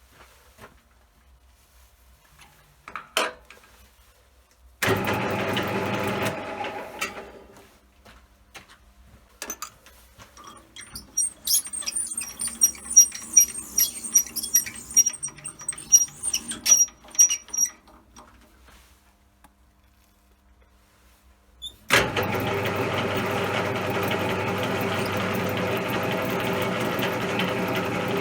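CJM360 bench lathe running with a steady hum, switched on briefly and spinning down, then a stretch of irregular metallic clicks and clatter with some ringing, and about three quarters of the way through the lathe starts again and runs steadily.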